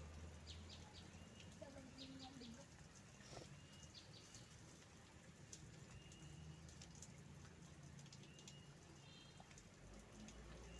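Faint birds calling: scattered short, high chirps and brief whistled notes, over a low steady background hum.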